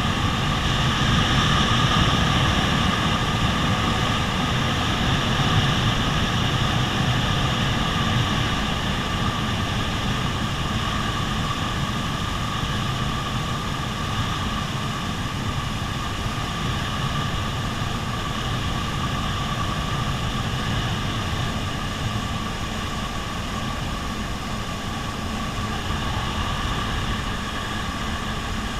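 Jet ski engine running steadily at cruising speed, a continuous drone with a rush of wind and water underneath.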